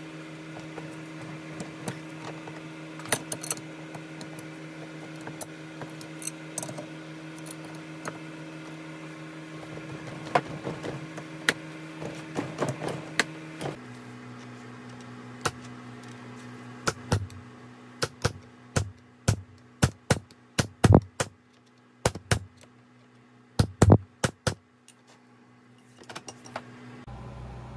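Metal clinks and knocks of tools and parts on a manual transmission being assembled. A steady low hum carries a few light clicks at first. Partway through the background changes suddenly, and a run of sharp metal knocks follows, some of them loud.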